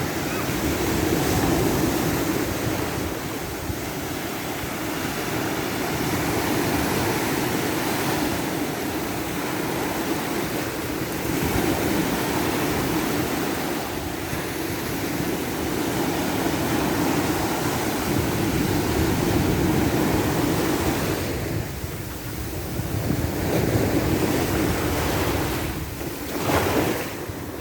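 Ocean surf washing ashore in slow, continuous swells that rise and ease, with a brief stronger surge near the end; wind buffets the microphone.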